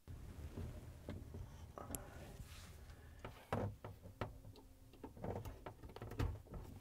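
Scattered light clicks and knocks of a dishwasher power cord being handled and its plug pushed into a wall outlet, the loudest about three and a half seconds in.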